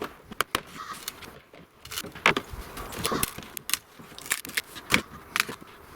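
Scattered light knocks and clicks at irregular intervals, with a few sharper ones about two, three and five seconds in.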